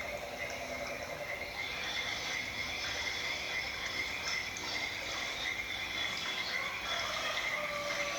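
Recorded nature sounds played back through a speaker: a steady chorus of frogs calling.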